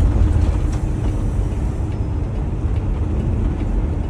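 Steady low drone of a semi truck's engine and road noise heard from inside the cab while driving.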